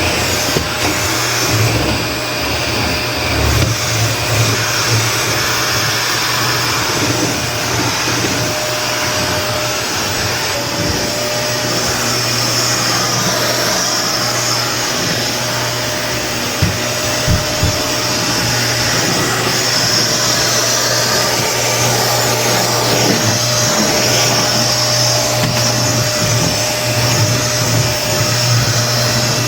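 Vacuum cleaner running steadily with its motor hum and rushing airflow, with a couple of knocks about halfway through.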